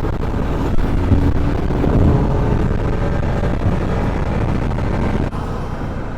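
Bajaj Pulsar RS 200's single-cylinder engine running steadily while riding, heard from on the bike, with a brief dip in level about five seconds in.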